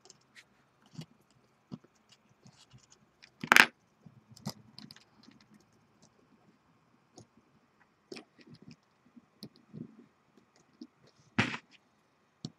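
Small handling noises as fingers work a wire coil into the posts of a rebuildable atomizer's metal deck: scattered light clicks and scrapes, with two louder sharp knocks, one about three and a half seconds in and one near the end.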